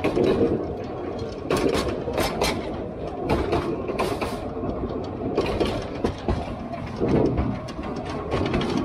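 Diesel-hauled narrow-gauge train running along the track: a steady rumble with frequent irregular clicks and knocks from the wheels and wagons.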